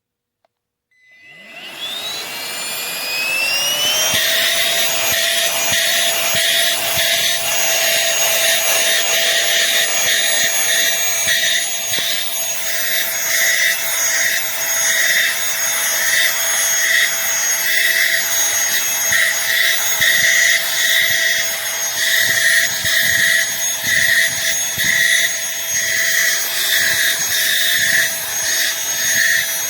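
Aspiron cordless handheld vacuum cleaner switching on about a second in, its motor whine rising in pitch for a few seconds as it spins up, then running steadily with a fluctuating hiss.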